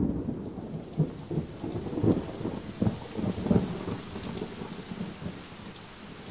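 Rain falling steadily with low, uneven rumbles of thunder, coming in suddenly: a thunderstorm sound effect.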